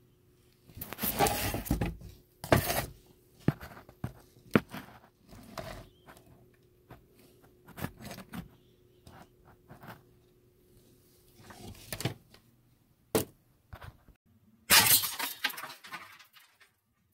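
Handling noise: irregular knocks and sharp clicks, with a few rustling or scraping spells about a second long.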